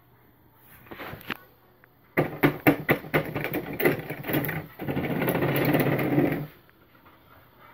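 Yamaha PSR-S900 arranger keyboard played through its built-in speakers at full volume: a quick run of notes for about two and a half seconds, then a sustained chord for about a second and a half that stops abruptly. The keyboard is sounding again after repair of a fault that had left all its outputs silent.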